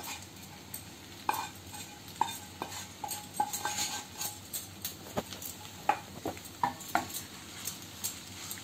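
Wooden spatula scraping fried chicken pieces out of a non-stick frying pan into a pan of macaroni, then stirring the pasta: irregular scrapes and light knocks of wood on the pans.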